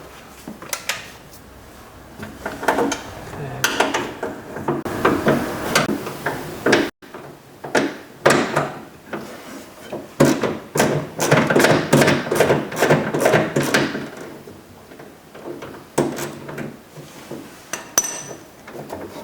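Hand ratchet and socket clicking on the door handle's 8mm bolts, with metal knocks and rattles from inside the car door. The clicking comes in quick runs in the middle.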